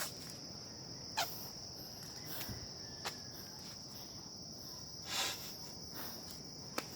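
Insects droning in one steady high pitch, with a few faint clicks and a soft rustle about five seconds in.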